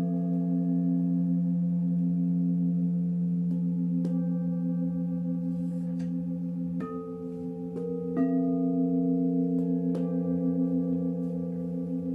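Several singing bowls ringing together in steady, layered low tones, one of them pulsing with an even waver. A few light strikes partway through bring in new pitches and change the mix.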